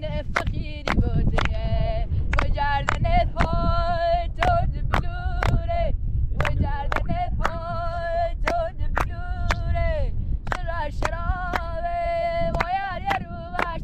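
A woman singing a melody with long, wavering held high notes, over a steady beat of sharp percussive strikes about twice a second, with a low rumble underneath.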